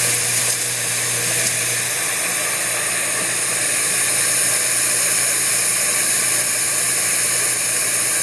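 Haeger 618Plus hardware insertion press and its parts feed system running: a steady hiss, with a low hum that drops away about two seconds in.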